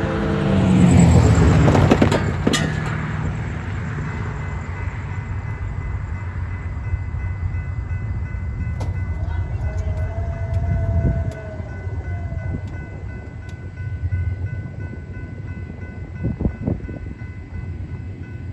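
General Signals type 3 electronic crossing bell starts ringing about five seconds in and rings steadily as the crossing gates lower, warning of an approaching freight train. Low rumble underneath throughout, with a louder noisy passage in the first couple of seconds.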